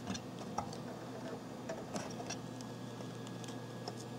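Faint, scattered small clicks of a JiffyDOS ROM on its adapter board being rocked back and forth and pressed down into the Commodore 1541 drive board's chip socket, over a steady low hum.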